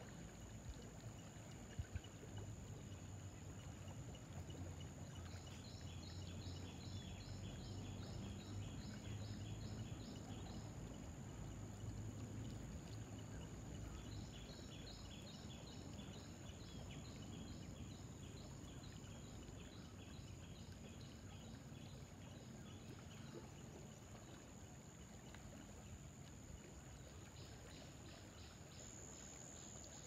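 River water flowing along the bank, heard as a low, steady rush. Over it runs a thin, steady, high whine, and three spells of quick, high, evenly repeated chirps, about two or three a second.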